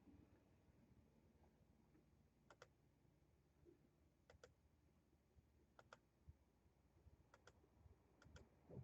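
Near silence broken by faint, scattered computer clicks, several in quick pairs, one to two seconds apart.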